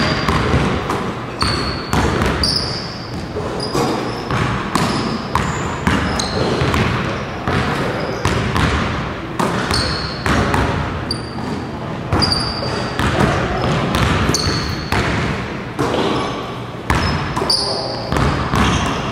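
Basketballs bouncing on a hardwood gym floor during dribbling and passing drills: sharp, irregular thuds about once a second or faster that echo around the hall, with short high sneaker squeaks among them.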